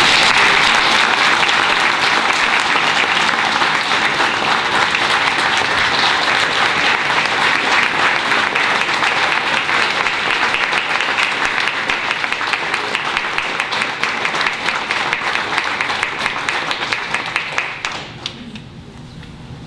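Audience applauding steadily for about eighteen seconds, then dying away near the end.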